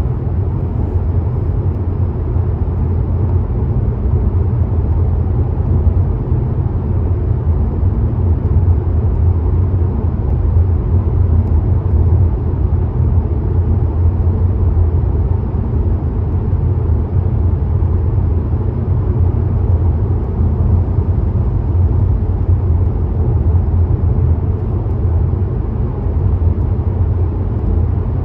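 Car driving at motorway speed: a steady, loud low rumble of tyre and road noise that holds even throughout.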